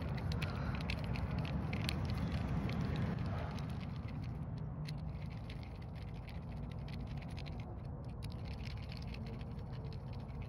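A screwdriver turning the small screws of a leaf-blower carburetor by hand, with scattered light clicks and scrapes of metal on metal, over a low steady hum.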